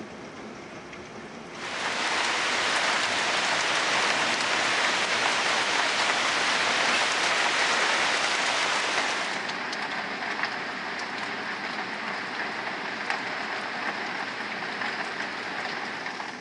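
Heavy rain pouring down. It comes in suddenly about one and a half seconds in and stays loud, then turns softer and duller about nine seconds in, with a few scattered sharp ticks.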